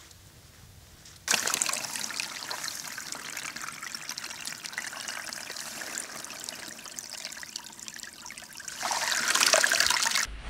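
Small moorland stream trickling and splashing over mossy rocks, with a soft water flask held in the flow to fill. It starts abruptly about a second in and gets louder near the end.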